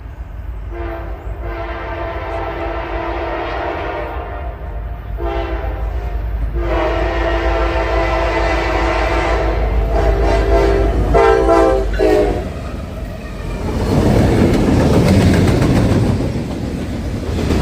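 Norfolk Southern freight locomotive's multi-chime air horn played as a horn show: a string of long and short blasts. In the last few seconds the horn stops and the train's rumble and wheel clatter take over as it passes.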